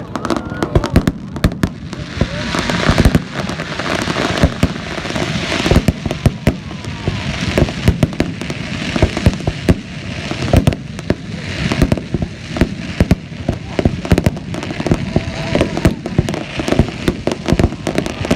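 Fireworks display: aerial shells bursting in rapid succession, a near-continuous string of sharp bangs, with a hiss swelling and fading between them.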